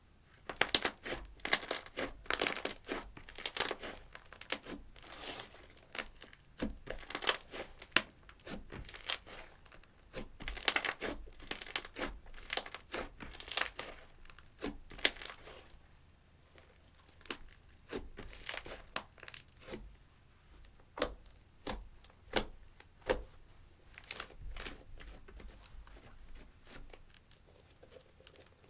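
Clear slime mixed with eyeshadow being kneaded and stretched by hand, giving quick irregular sticky crackles and pops. The crackling is dense for about the first fifteen seconds, then thins out to scattered clicks.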